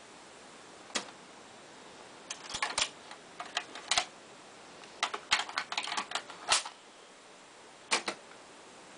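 A run of sharp plastic clicks and clatter from a cassette tape in its clear plastic case being handled, along with clicks from the cassette deck's controls: a single click, two quick clusters of rapid clicks, then a double click near the end.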